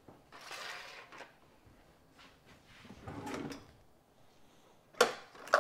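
Kitchen handling noises: two soft scrapes as aluminium foil pie tins are moved about on the counter, then two sharp knocks near the end.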